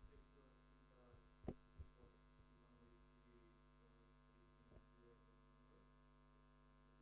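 Near silence with a steady electrical mains hum, under a faint, distant voice: an audience member asking a question off-microphone. A few soft clicks.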